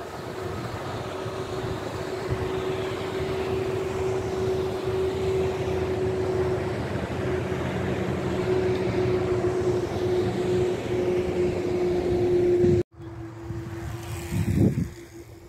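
Motorboat engine running as the boat speeds past on the river: a steady hum with water and wind noise that builds slowly, then cuts off suddenly near the end, leaving a quieter stretch with one brief low thump.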